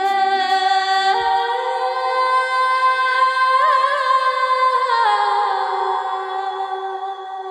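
Background music: a high singing voice holding long notes, with a brief wavering ornament partway through and a slide down a little after the middle, over a steady held lower tone.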